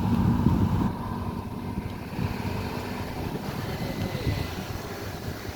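Steady low rumble of a Lion Air airliner on the ground after landing, with some wind noise. It drops a little about a second in.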